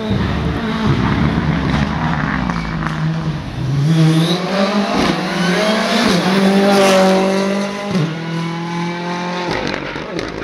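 Ford Fiesta R5 rally car's turbocharged four-cylinder engine at full throttle as the car approaches and passes close by. The engine note climbs strongly about four seconds in, holds high with small steps as it shifts, and drops sharply about eight seconds in as the car goes past and away.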